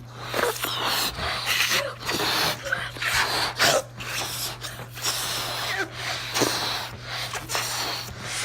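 Children blowing hard into balloons to inflate them: a run of forceful, breathy puffs with short gasping in-breaths between them.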